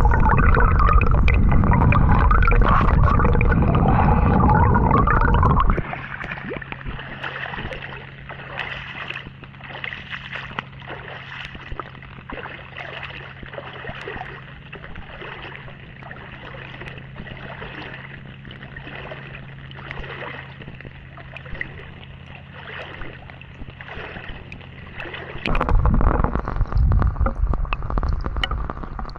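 Water gurgling and sloshing, muffled on a small action camera's microphone. A loud low rumble fills the first several seconds and returns near the end, and between them a quieter steady hum runs with faint regular knocks.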